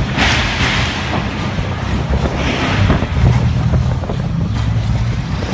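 Low rumble of a large cruise ship's engines and thrusters with churning water at the pier, and wind buffeting the microphone. The hiss of water and wind swells at the start and again about halfway through.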